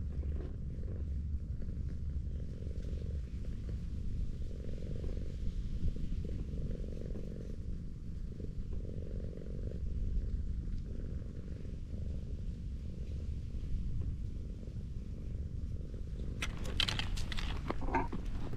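Tortoiseshell cat purring steadily while being stroked, a low rumble rising and falling in slow waves about every two seconds. Near the end, a burst of scuffs and crunches as the cat gets up and moves on the gravel.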